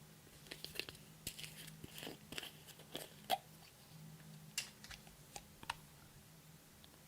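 Irregular small sticky pops, clicks and crackles of hands working slime and makeup, loudest about three seconds in, over a faint steady hum.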